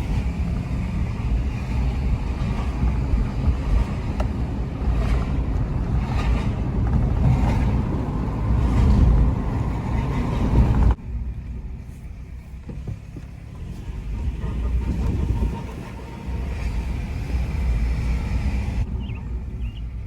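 2009 Honda CR-V being driven, with a steady low rumble of tyres and engine. It drops sharply and becomes quieter about halfway through.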